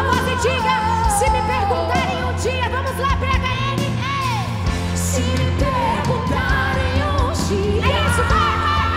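Live worship band playing a song: a singing voice carries a wavering melody over a steady bass line and a regular drum and cymbal beat.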